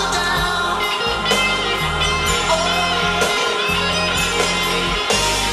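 Recorded pop-rock song playing through floor-standing hi-fi loudspeakers in a room: a guitar-led passage over bass and band backing, with no singing.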